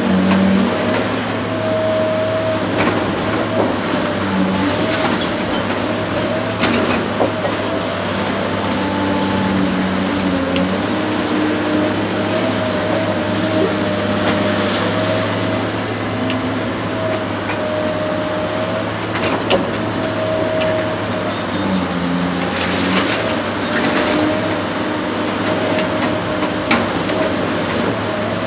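Large hydraulic demolition excavator working: its diesel engine runs steadily under a hydraulic whine that wavers a little with load. A few sharp knocks and cracks break in along the way.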